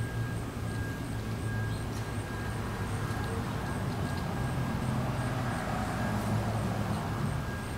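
Steady low rumble of outdoor background noise, with a faint high tone held steady above it.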